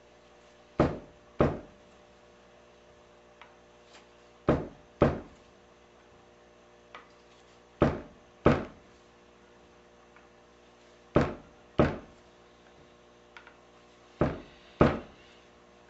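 Keys of a rebuilt grand piano keyboard being checked one after another for downweight with 49-gram test weights. Each test gives a pair of sharp wooden knocks about half a second apart, repeating about every three seconds, with faint ticks between.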